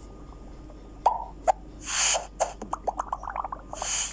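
Channel logo intro sound effect: a sharp pop about a second in, a whoosh about two seconds in, a quick run of short popping blips, and a second whoosh near the end.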